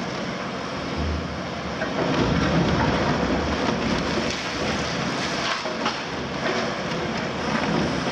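Demolition noise: a Cat 352F excavator's C13 diesel engine running while building rubble crunches, cracks and crumbles. It gets louder from about two seconds in, with scattered sharp cracks and clatter.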